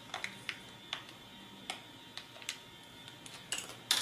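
Small clear plastic bag of servo parts crinkling as it is handled, with scattered light clicks of small plastic parts and screws. The loudest clicks come near the end as a small screw is set down on the table.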